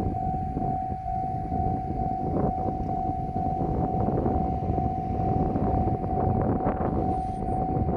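A level-crossing alarm sounding a continuous steady tone over the rumbling, clattering noise of a diesel railcar train on the line.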